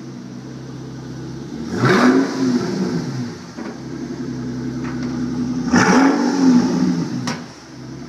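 Mercedes-Benz S65's twin-turbo V12 running with its mufflers removed: idling, then blipped twice, each rev climbing sharply and dropping back to idle within about a second.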